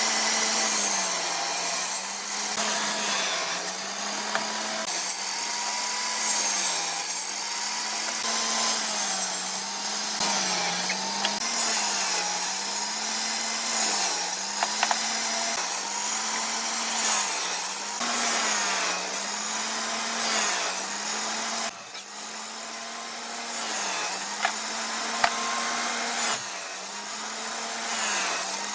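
An electric power tool working wood. Its motor pitch dips and recovers in a regular rhythm about every one and a half seconds, as if pushed through the wood stroke by stroke.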